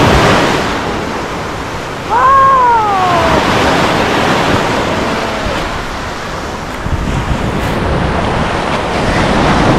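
Sea surf washing onto a sandy beach, swelling and easing, with wind on the microphone. About two seconds in, a brief falling call sounds over it.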